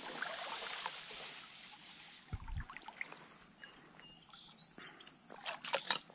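Handling noise of a freshly caught brown trout in a landing net at the stream's surface: brushing and light splashing, with a dull bump a little over two seconds in and a cluster of clicks and splashes near the end. A few short bird chirps come through about four to five seconds in.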